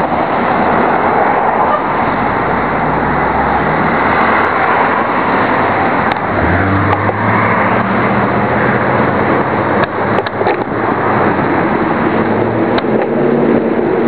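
Heavy wind noise rushing over the camera's microphone while moving along a street. A low engine hum from nearby traffic joins in about six seconds in.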